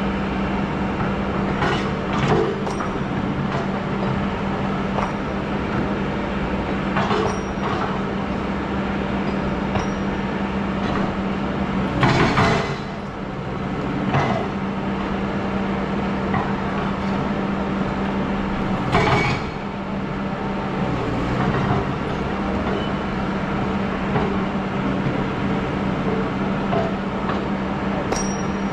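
Excavator engine running steadily with a constant hum, broken by four short, louder noises, the loudest about twelve seconds in.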